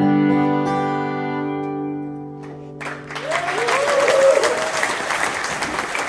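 The last chord of a fiddle and acoustic guitar rings out and fades. About three seconds in, the audience bursts into applause with cheers.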